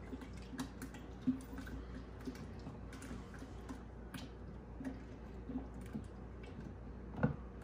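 Faint, scattered small clicks and wet sounds of a pitcher of mango drink being handled. There is one louder knock near the end.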